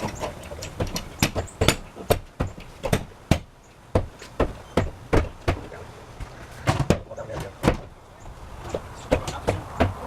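Hammer blows, a run of sharp irregular knocks about two a second, as a board is fastened over a window to shutter it against a hurricane.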